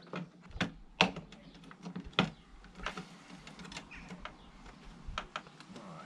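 Irregular sharp clicks and knocks of a plastic grab handle being pressed and worked into the metal inner panel of a VW T5 rear barn door, its clips being pushed to catch under the metal.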